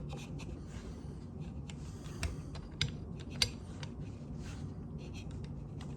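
Quiet metallic clicks and sliding from a Remington Model 12A pump-action .22 rifle being handled during disassembly, as the fore-end and tubular magazine are slid back under the receiver. A few sharp clicks stand out near the middle.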